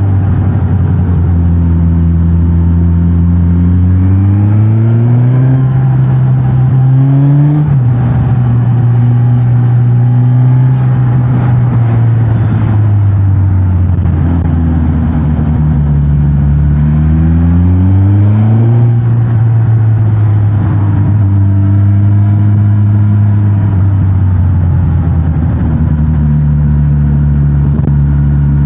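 Suzuki GSX-S1000GT's inline-four engine through its stock exhaust while riding. Twice the engine note climbs under acceleration and then drops at a gear change. Between and after those climbs it holds a steady cruising note.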